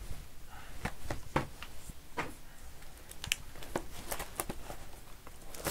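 Trading card packaging handled by hand: plastic wrapper crinkling with irregular light clicks and rustles.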